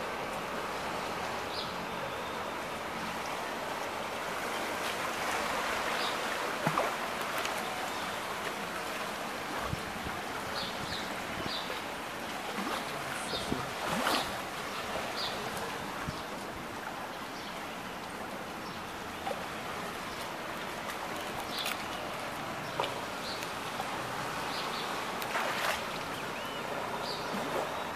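Steady rushing of floodwater and rain over a flooded street, with short high chirps here and there and a few brief knocks.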